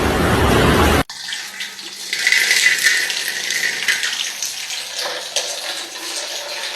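A loud rushing noise cuts off abruptly about a second in, giving way to steady running, splashing water, like a tap pouring into a filling bath.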